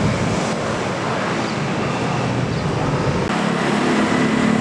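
Large buses' engines running with surrounding traffic noise, a dense steady rumble; about three seconds in, a steady low engine hum comes in.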